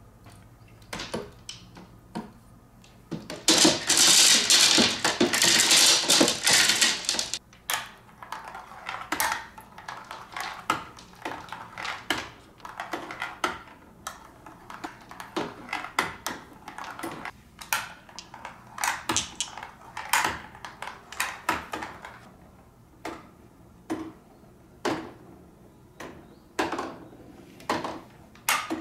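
Glass marbles rolling down the plastic chutes of a marble run under water in a glass tank, clicking and clacking against plastic and glass in irregular taps. A few seconds in, a loud dense rush of clatter lasts about four seconds.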